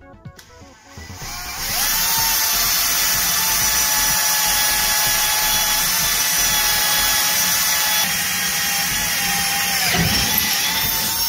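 Power drill with a 6.5 mm twist bit boring through two stacked metal mounting brackets, running with a steady high whine from about a second and a half in. The pitch dips briefly near the end, and the drill stops abruptly.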